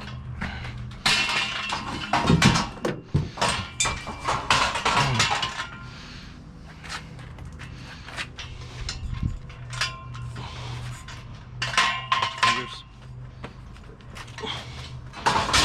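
Scaffolding parts being handled, with irregular metal clanks, knocks and rattles, heaviest in the first few seconds and again later, over a steady low hum.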